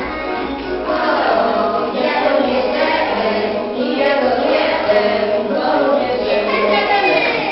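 Music: a song sung by a group of voices, with a steady accompaniment, playing for a children's circle dance.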